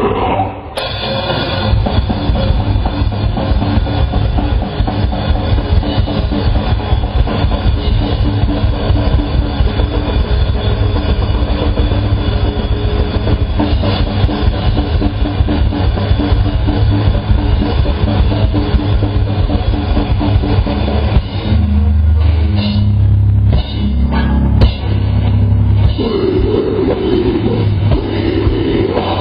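Live heavy metal band playing: distorted electric guitars and bass over fast, dense drumming, with the top end dulled. About three quarters of the way through the band breaks into stop-start hits, then the vocals come back in near the end.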